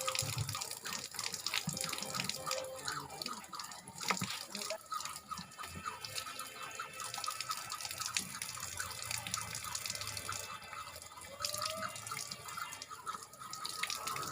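Water running from a tap into a sink, splashing and dripping unevenly as things are rinsed by hand.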